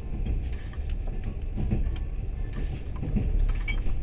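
Running passenger train, a steady low rumble heard from aboard, with a few short sharp clicks.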